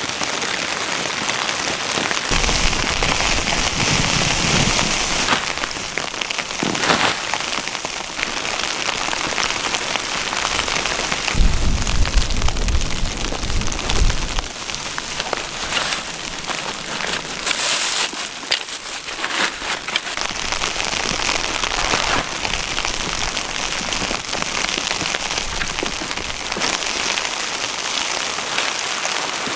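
Blizzard wind driving snow: a steady crackling hiss of blown snow particles, with low rumbling wind gusts about two seconds in and again around eleven to fourteen seconds in.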